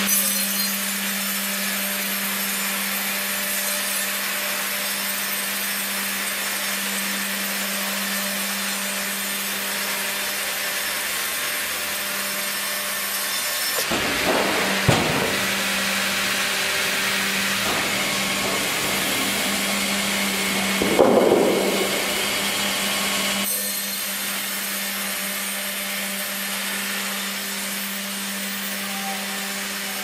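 Hydraulic vertical band saw cutting lengthwise through a squared log on a sawmill carriage: a steady hiss of the blade in the wood over a constant machine hum. There is a sharp knock about halfway through and a louder surge a few seconds later.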